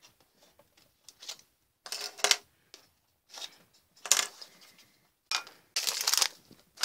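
Clothespins clicking and clattering as they are unclipped from their packaging card and set down on a desk: several sharp separate clicks, and a denser clatter about two-thirds of the way through.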